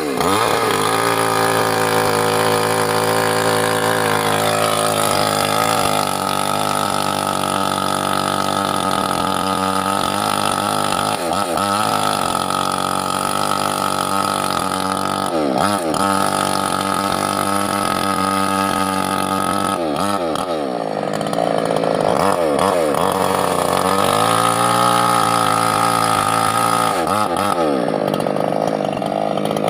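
Mini two-stroke chainsaw running steadily, its engine speed dipping and coming back up several times.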